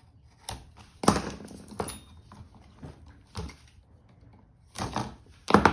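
Irregular knocks and clunks from hands and tools working at a wall outlet box while the wiring is connected. There are about six of them, the loudest a little after one second in and again near the end.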